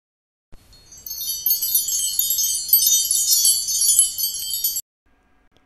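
Wind chimes tinkling: a dense shimmer of many high ringing tones that swells in over the first second and cuts off suddenly about a second before the end.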